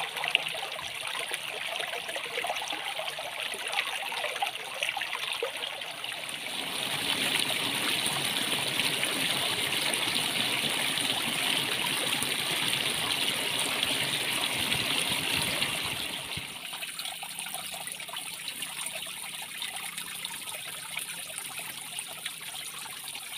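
Stream water rippling and splashing over rocks. It gets louder about a quarter of the way in, where a small cascade pours over a boulder, then softer for the last third, where water pours from the end of a pipe.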